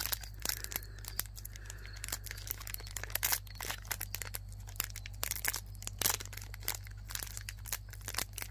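Foil wrapper of a Pokémon trading card booster pack being torn open by hand in small tugs: a string of irregular crinkles and small rips.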